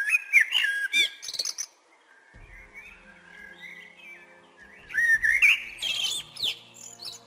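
Forest songbirds singing: two loud bursts of quick, warbling phrases that glide up and down in pitch, with quieter chirping between them. A faint low steady hum comes in about two seconds in.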